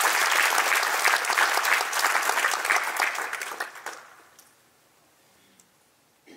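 Audience applauding, many hands clapping, dying away about four seconds in.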